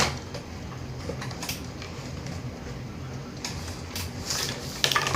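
Handling noises from unpacking a toy cash register: scattered plastic clicks and brief rustles of packaging, with a cluster of them about four to five seconds in.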